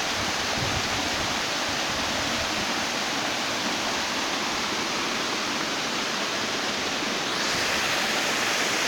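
Waterfall, a steady rush of falling water that turns louder and hissier about seven seconds in.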